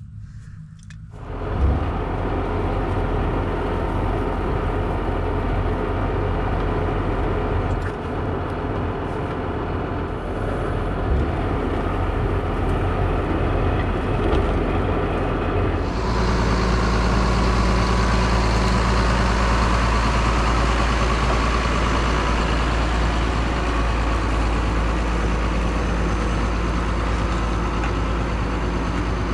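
Tractor engine running steadily. It comes in loud about a second and a half in, and about halfway through it gets louder and brighter, as if working harder.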